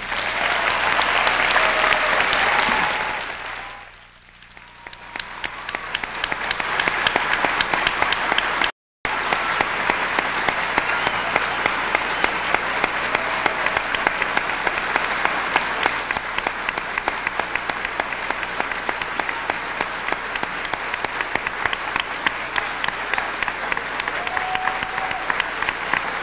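Audience applauding at the end of a speech. A loud first burst dies down about four seconds in, then builds again into long, steady clapping. The sound cuts out completely for a moment about nine seconds in.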